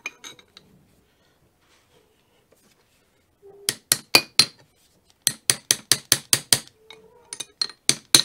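Small hammer tapping metal on metal, driving the wiper seal into the top of a pallet jack's hydraulic ram housing. Short, ringing clinks: three taps about halfway through, then quicker runs of taps, several a second.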